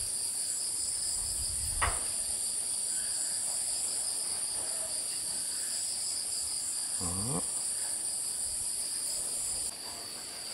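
Steady, high-pitched insect chorus, a continuous shrill drone, slightly quieter near the end. A single click about two seconds in and a brief falling vocal sound about seven seconds in.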